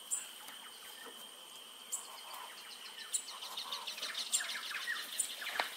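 Birds calling: short high chirps about once a second, joined about halfway through by a busier run of rapid repeated notes, over a steady high-pitched insect drone.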